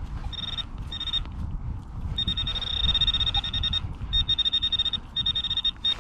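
Handheld metal-detecting pinpointer sounding a high-pitched buzzing tone in rapid pulses, cutting in and out several times: it is signalling metal close to its tip in the dug soil. A low rumble of wind or handling runs underneath.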